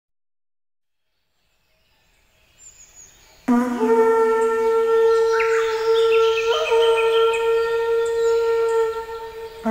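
Horagai, a Japanese conch-shell trumpet, blown in one long blast that starts suddenly about three and a half seconds in and is held until near the end, with the next blast starting right at the end. The note starts low and then carries on an octave higher.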